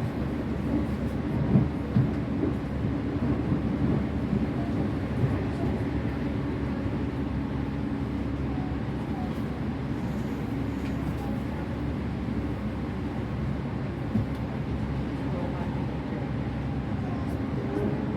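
Interior running noise of a Tokaido Line train car between stations: a steady rumble, with a few louder knocks in the first few seconds.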